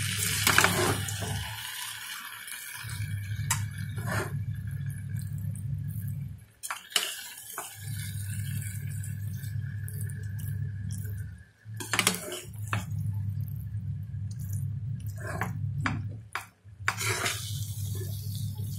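Kitchen dishes and utensils clinking and knocking in a dozen or so separate light strikes as the dish is handled and plated, over a steady low hum that drops out briefly a few times.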